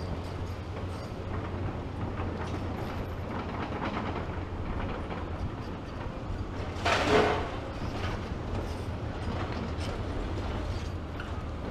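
Diesel excavators running steadily at a demolition site, with scattered clanks and knocks of machinery and debris. A loud crash lasting under a second comes about seven seconds in.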